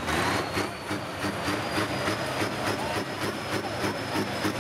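Massey Ferguson 2775 pulling tractor's diesel engine running hard under full load while dragging the weight sled, with a regular pulsing of about three beats a second and a thin high whine that rises slowly.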